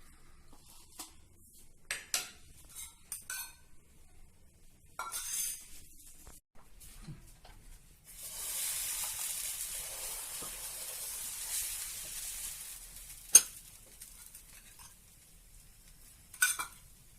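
Dosa on a hot tawa sizzling steadily for about five seconds in the middle, among light metal clinks and scrapes of kitchen utensils. One sharp metal clink a little after the sizzle is the loudest sound.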